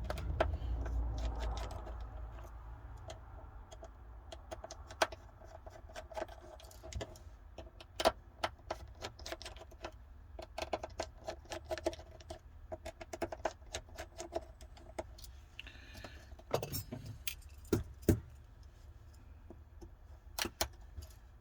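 Small metal hand tools clicking and clinking against a smartphone's internal frame as its screws are taken out: irregular sharp clicks and light taps, a few of them louder.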